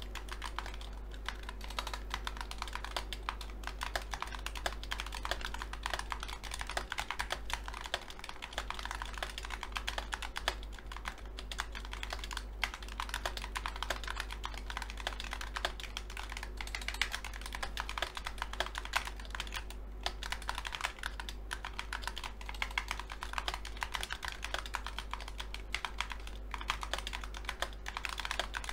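Continuous fast typing on a Razer Huntsman Tournament Edition TKL keyboard with red linear optical switches and double-shot PBT keycaps: a dense, even stream of key clacks.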